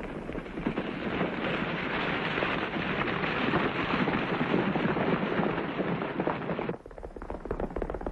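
A band of horses galloping, a dense rumble of many hoofbeats that swells up and holds. It cuts off abruptly near the end to a thinner clatter of hooves.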